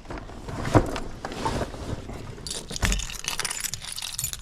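Two dull thumps, then from about halfway through a busy, continuous jangling of small metal objects knocking together.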